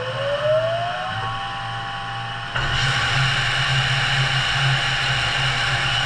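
Studer S33 CNC grinder: a spindle winds up with a rising whine that levels off after about a second and a half. About two and a half seconds in, the coolant flood switches on with a sudden, louder hiss of fluid spraying over the spinning grinding wheel and gear.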